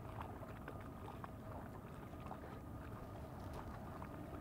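Faint, steady background of a fishing boat sitting on the river: a low rumble with a faint steady hum, and scattered light clicks as a crappie is worked off a hook with a hook-removing tool.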